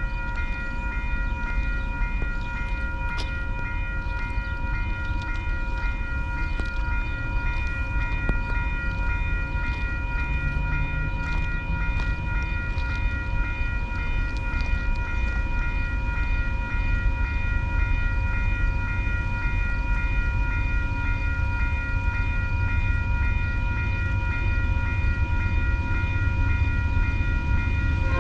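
A bell ringing steadily with a fast repeating strike, over the low rumble of a diesel freight train that grows slowly louder. The train is PanAm's AYPO freight, led by GE C40-8 locomotives.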